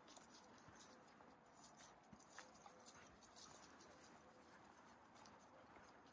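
Near silence with faint footsteps on a dirt trail: soft, irregular taps and light clicks, a few each second.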